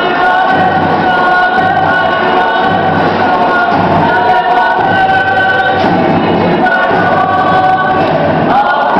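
Many voices of a large performing troupe singing a Samoan group song together, holding long notes that rise and fall in pitch.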